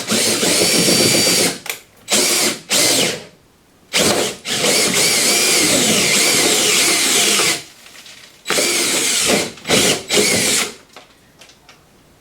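Power drill running in repeated stop-start bursts of one to three seconds, its whine rising and falling in pitch as the speed changes, then stopping near the end.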